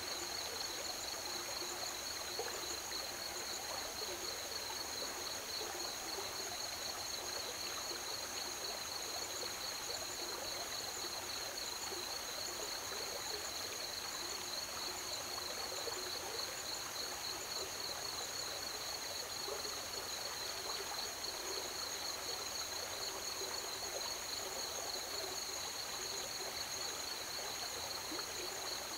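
A night chorus of crickets, a steady high shimmering trill at two pitches, over the continuous rush of river water.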